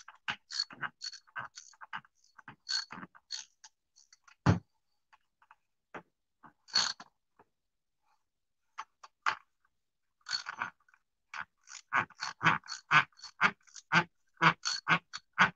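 Ratchet wrench clicking in short, uneven strokes as bolts on a piston sprayer pump are tightened, with one heavier knock about four seconds in, a pause in the middle, and a quicker run of clicks, about three or four a second, near the end.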